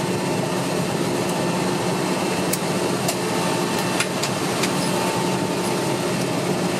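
Steady hum and whine heard inside the cabin of a Bombardier Dash 8-100 while its turboprop engine turns the propeller slowly. A few faint clicks are heard over it.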